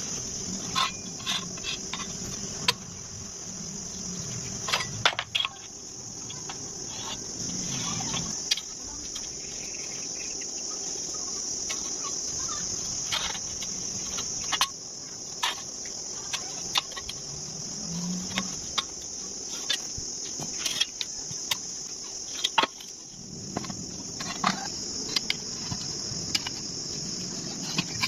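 A steady, high-pitched insect chorus, like crickets, runs throughout, broken by scattered sharp clicks and knocks.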